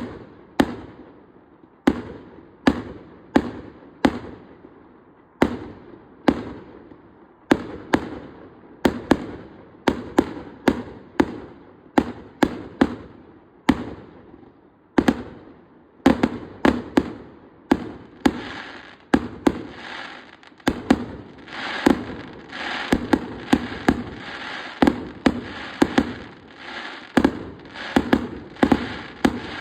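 Fireworks display: a string of sharp bangs from bursting shells, each trailing off. About halfway through the bangs come faster, and a continuous crackle fills the gaps between them.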